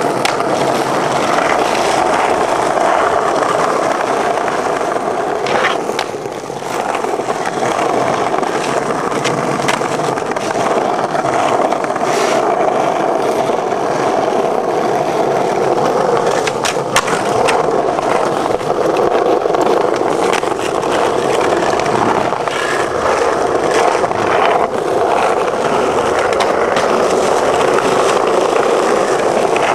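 Skateboard wheels rolling steadily over hard plaza paving, a continuous gritty rumble. A few sharp clacks of the board come through along the way as it is popped and lands.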